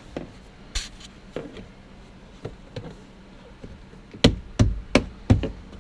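A few light taps, then four sharp knocks in quick succession near the end, about three a second: car interior trim being knocked into its clips by hand.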